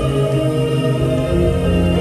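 Slow, sustained music from the light-and-water show's soundtrack: long held chords, with a deeper bass coming in about a second and a half in.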